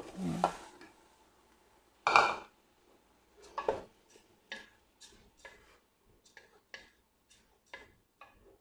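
Wooden spatula stirring dry crushed wheat and rice in a metal pot: short scrapes and knocks against the pot, about two a second, after two louder rushes of grain near the start and about two seconds in.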